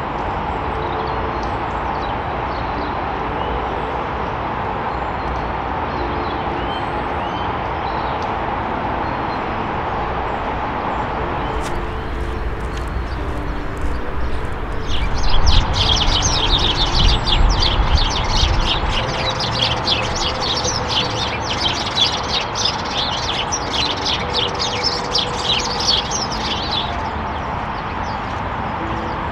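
A flock of house sparrows chirping busily for about twelve seconds through the middle, over a steady background hiss with faint low sustained tones.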